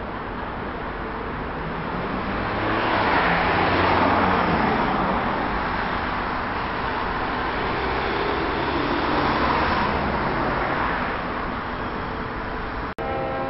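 Road traffic noise, swelling as vehicles pass about four seconds in and again near ten seconds.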